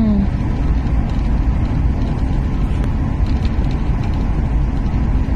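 Passenger train running at speed, heard from inside the carriage: a steady low rumble.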